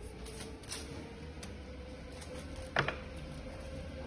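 Cardboard firework tubes being handled and set on a workbench: soft rustling and light taps, with one sharp knock about three seconds in, over a faint steady hum.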